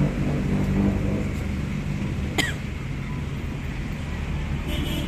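A steady low mechanical hum, like a motor or engine running, with one sharp click about halfway through.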